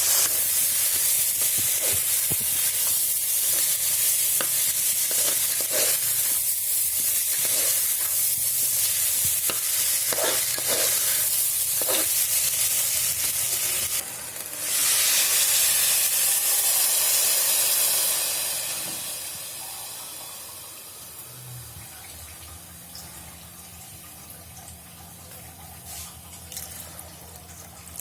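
Hot oil sizzling as rice and whole spices fry in a pressure cooker, with a spoon scraping as it is stirred. About halfway through, a fresh burst of hiss starts and then dies away over a few seconds.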